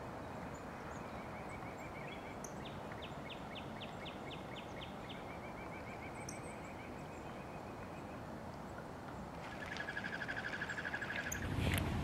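Outdoor ambience with a steady background hiss and wild songbirds calling: a run of about nine sharp, clear notes at roughly three a second, a fainter fast trill, and near the end a louder rapid trill. A short rise of noise at the very end.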